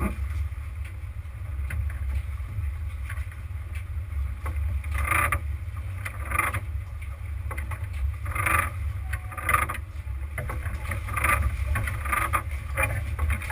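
Steady low rumble on board a Luhrs sportfishing boat at sea, from its engine and wind on the microphone. In the second half, short, sharper sounds come every second or two.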